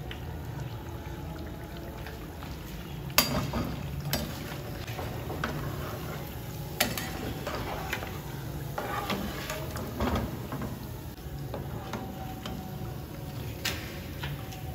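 Akara bean fritters sizzling in hot oil in a frying pan, with a metal slotted spoon clinking sharply against the pan a few times as the fritters are scooped out.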